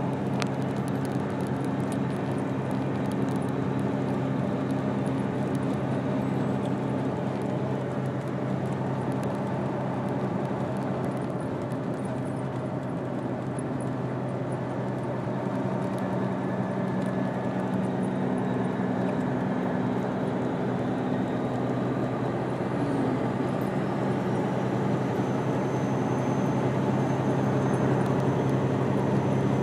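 A vehicle's engine running steadily at constant speed: a low, even droning hum with background noise, growing slightly louder near the end.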